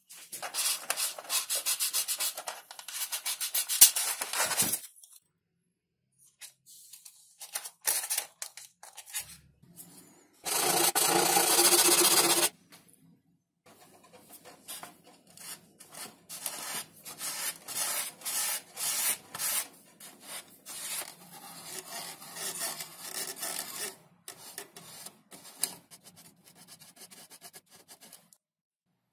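Hand-work on an XPS foam model airplane: repeated rubbing and scraping strokes on the foam, in bursts. About ten seconds in, a louder steady rasp lasts about two seconds.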